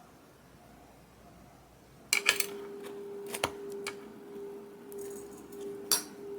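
Clinks and taps of kitchenware being handled, starting about two seconds in, with a steady hum that begins at the same moment.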